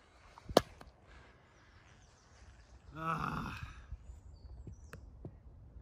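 A single sharp click about half a second in, then a brief wordless vocal sound from a person around three seconds in, over faint outdoor ambience.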